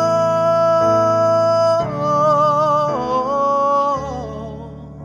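Worship song: a man sings a long held note, then a few more held and wavering notes on an open vowel, over sustained keyboard chords. His voice fades out about four seconds in while the keyboard chords ring on.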